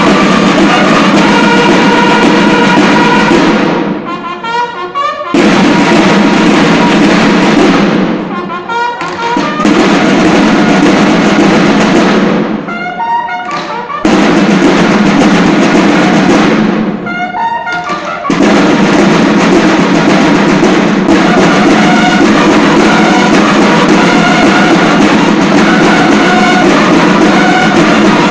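A banda de guerra playing: a line of field drums and bugles sounding together in a loud march. The full sound drops back sharply four times for a second or so, then comes in again.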